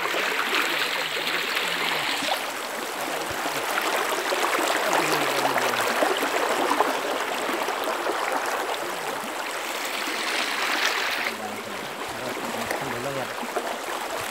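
Shallow river rushing over rocks, a steady loud rush of water that drops away to a quieter rush about eleven seconds in.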